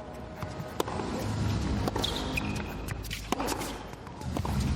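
Tennis rally: a racket strikes the ball about once every second or so, with ball bounces on the court between the strikes.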